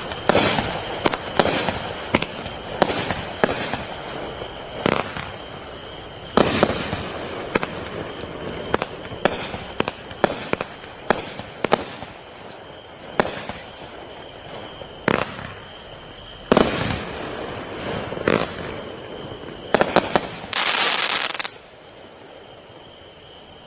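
A 200-gram consumer fireworks cake firing: a series of irregularly spaced shots bursting with sharp bangs and crackle, ending in a dense burst about a second long near the end, after which the firing stops.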